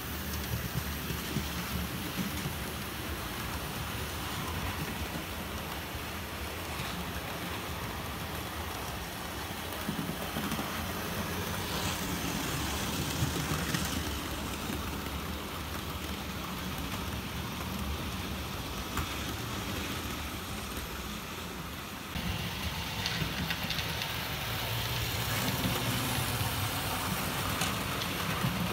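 OO gauge model train, a Gresley A4 locomotive hauling a rake of Pullman coaches, running on the layout's track. A steady low motor hum sits under the rattle of the wheels over rail joints and points. It grows louder about three-quarters of the way in as the coaches come close.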